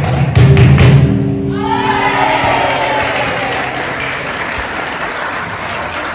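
A flamenco number ending: music with sharp heel stamps for about a second, then stopping. The crowd breaks into applause and cheers.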